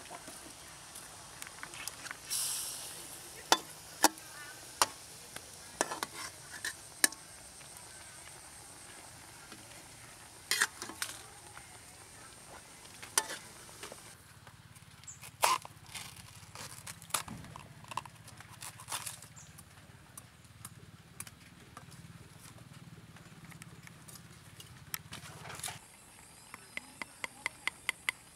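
Scattered clinks and knocks of a metal spatula against a steel wok of cooking fish. Near the end, a cleaver chopping thin bamboo sticks on a wooden board in a steady rhythm, about three strokes a second.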